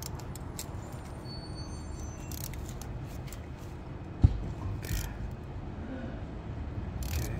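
Cap-style oil filter wrench on a ratchet being worked on a spin-on oil filter under the car: scattered light clicks and one sharp knock about four seconds in, over a steady low hum.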